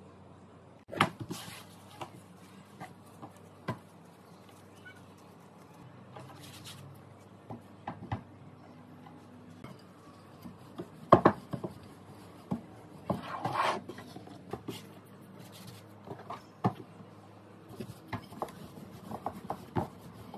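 Cookie dough being handled on a floured countertop: soft pats, scuffs and rubbing with scattered light knocks, the sharpest about a second in and about eleven seconds in, and a longer rubbing scuff a couple of seconds later.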